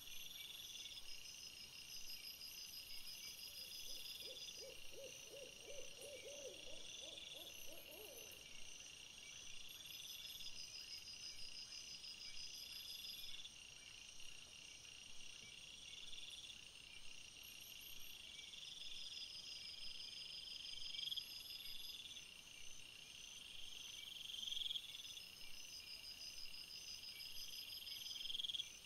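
Night insects chirping in several overlapping, steadily repeating high trills. About four seconds in, a short run of roughly a dozen quick low calls, rising slightly in pitch, lasts about four seconds.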